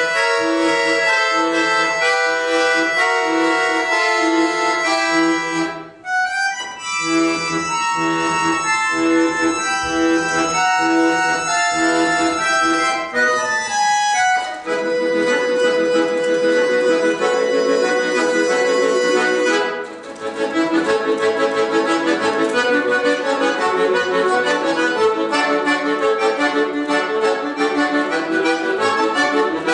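Solo piano accordion playing a melody with chords, pausing briefly about six seconds in, then going into a fast passage of quick, short notes from about twenty seconds in.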